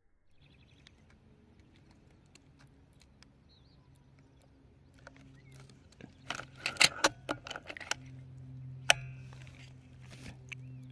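Handling noise from the air rifle and the camera on its scope while aiming: a quick cluster of clicks and rattles about six to seven and a half seconds in, and a sharp single click about nine seconds in, over a low steady hum.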